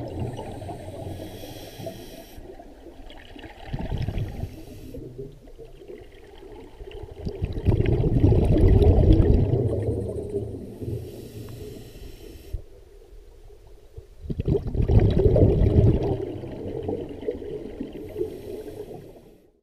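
Scuba diver's regulator breathing underwater: a thin hiss on each inhale alternating with louder, longer rushing bursts of exhaled bubbles, a few seconds apart.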